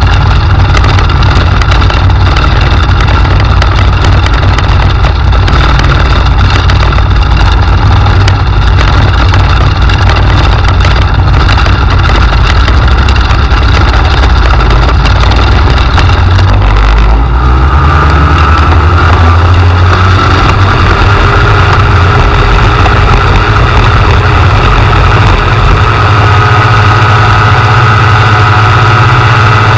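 Microlight trike engine running steadily on the ground, then opening up about halfway through as the trike starts its takeoff run, its note rising and steadying at higher revs.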